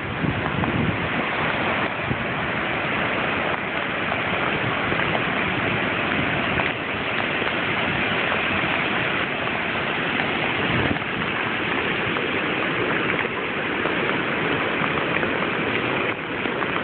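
Heavy hurricane rain pouring steadily onto a flooded street, a dense even hiss, with a few brief low rumbles of wind on the microphone.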